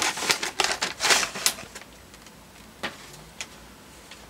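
Gift wrapping paper being torn and rustled off a book: a quick flurry of tearing and crackling in the first second and a half, then a few single crackles.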